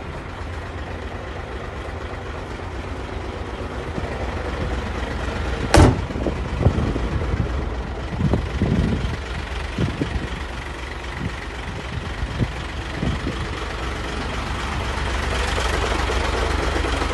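Hino 500 dump truck's diesel engine idling with a steady low hum. About six seconds in there is one sharp knock, then a few softer thumps, and the engine gets louder near the end.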